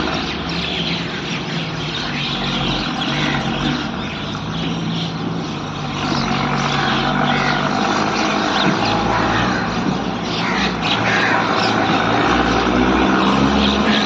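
Birds chirping over the steady low hum of a motor vehicle engine, which grows louder near the end.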